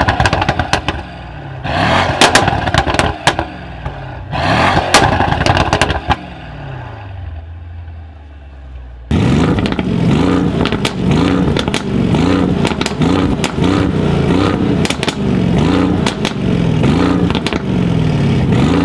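A Brabus-tuned Mercedes E-Class V8 is revved in three sharp bursts, each falling away with pops and crackles from the exhaust, then settles to a lower running note. After an abrupt cut, a 585 PS V8 in a Mercedes V-Class van runs loudly, its pitch rising and falling about once a second.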